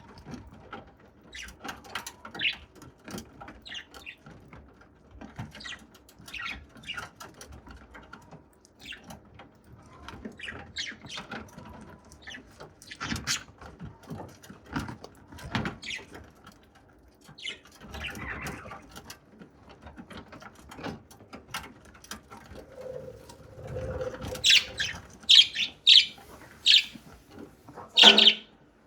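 Budgerigar pecking and cracking grains with its beak, a run of small irregular clicks and crunches. Near the end it gives several short, louder chirps.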